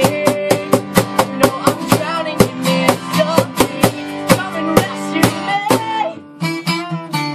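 Acoustic band playing: a cajón struck in a quick, steady beat under strummed acoustic guitars, with voices singing. The playing drops away briefly about six seconds in, then comes back in.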